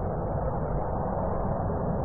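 Jet aircraft taking off: a steady, unbroken engine noise with most of its weight in the low and middle range.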